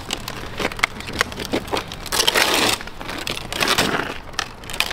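Large wooden cable drum wound with heavy armoured cable rolled over tarmac: gritty crunching with irregular knocks and creaks from the wooden drum. The crunching swells about two seconds in and again near four seconds.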